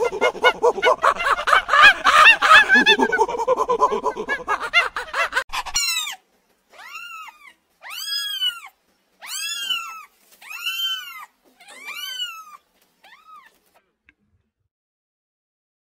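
A dense clamour of many overlapping animal calls cuts off abruptly, then a cat meows about seven times, each meow rising and falling in pitch, the last ones fainter.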